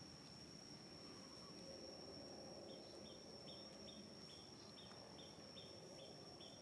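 Near silence: faint outdoor ambience with a steady high whine. From about three seconds in, a run of short chirps comes at about two to three a second.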